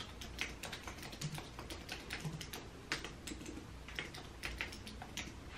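Typing on a computer keyboard: quick, irregular key clicks, several a second.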